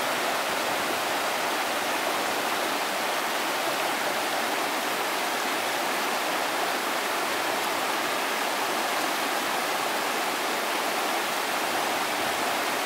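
River rapids rushing over and around boulders: a steady, unbroken rush of white water.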